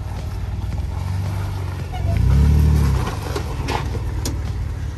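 Off-road vehicle's engine running low at crawling speed, then revving briefly up and back down about two seconds in as it climbs over rock. A few short sharp knocks follow.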